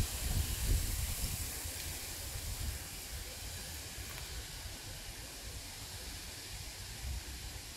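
A large latex balloon being blown up by mouth: a steady airy hiss of breath going into it, with low rumbling puffs in the first second or so.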